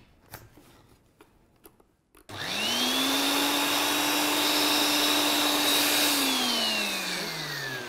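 Countertop blender starting up about two seconds in with a rising whine, running steadily for about four seconds as it blends thick soaked-cashew hummus, then switched off and winding down with a falling whine.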